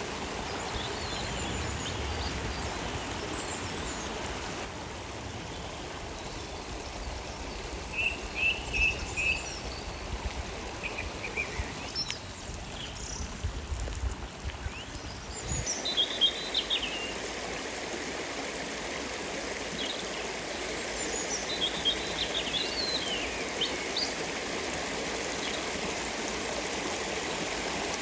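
Steady flowing water, with small birds chirping over it at intervals, including a quick run of four similar notes about eight seconds in. The water sound changes abruptly twice, about five seconds and sixteen seconds in, and a low rumble underneath drops away at the second change.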